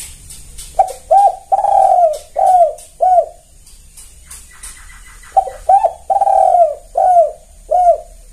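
Spotted dove cooing: two matching phrases of five low coos each, the third coo of each phrase drawn out longer than the rest.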